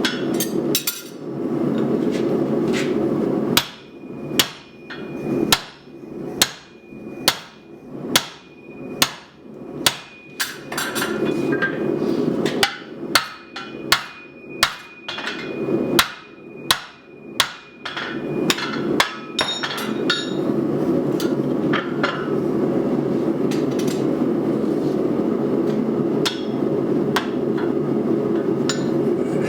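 Hand hammer striking hot steel on an anvil while forging an axe head, a steady run of blows a little more than one a second with a faint high ring from the anvil between them. Before and after the run there are only scattered strikes over a steady rushing noise.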